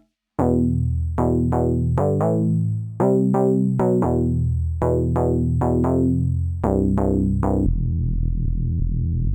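UK garage-style Serum 2 synthesizer preset playing a melodic phrase of separate notes with sharp attacks, starting about half a second in. Near the end a different patch takes over: a low buzzy synth bass pulsing rapidly.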